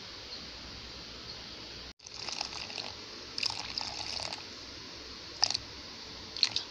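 Water poured from a glass jug into a well of flour in a bowl, starting about two seconds in, with two short sharp clicks near the end.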